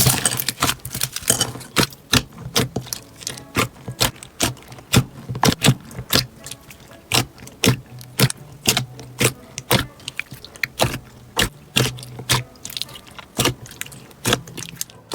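Slime being pressed and worked by hand, giving a rapid run of sharp clicks and pops, about three or four a second, that thin out near the end.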